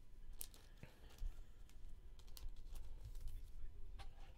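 Scattered light clicks and taps of trading cards being handled and set down on a tabletop, irregular and quiet.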